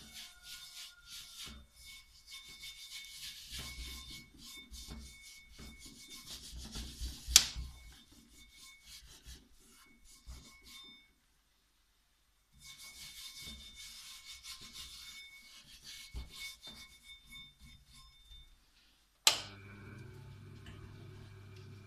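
Hands rubbing and scraping on the flat grinding disc of a MASTER-JK clipper-blade sharpener in irregular scratchy strokes, with a sharp knock about seven seconds in. About nineteen seconds in, a click and the sharpener's electric motor starts, running with a steady low hum.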